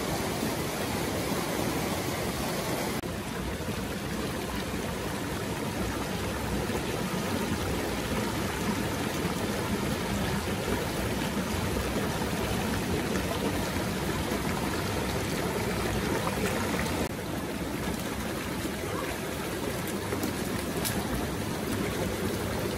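Shallow, fast stream rushing over rocks: a steady wash of running water, its tone shifting slightly at two cuts.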